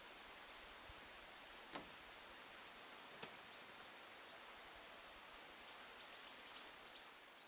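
Quiet outdoor ambience with a faint hiss and two faint clicks. Near the end, a small bird gives a quick series of short, high chirps, each falling in pitch.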